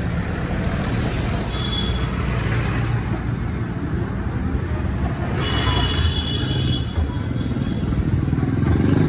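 Road traffic: a steady low rumble of passing vehicles, with a brief high-pitched tone twice, about a second and a half in and again around the middle.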